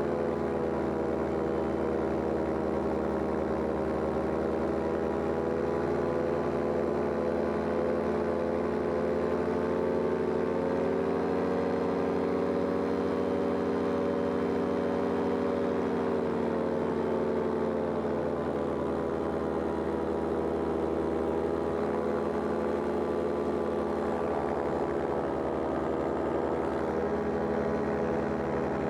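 Powered paraglider's engine and propeller running steadily in flight; the engine note rises a little around the middle and settles back down.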